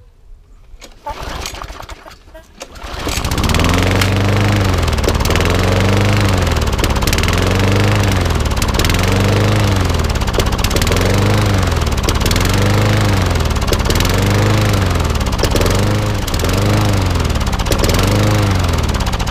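Briggs & Stratton lawnmower engine being pull-started: it catches about three seconds in and runs loud, its speed surging up and down about once a second. It is running rough and smoking heavily from oil in the cylinder and carburettor after the mower was tipped on its side.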